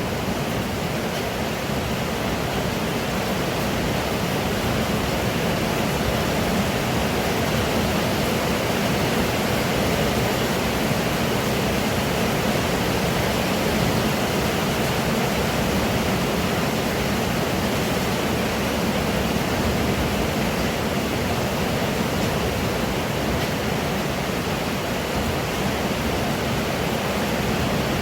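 Pouring rain, a steady even rush of water with no separate drops or knocks standing out.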